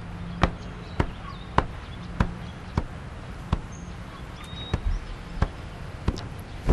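A steady series of short, sharp knocks, a little under two a second, with faint high chirps in the background.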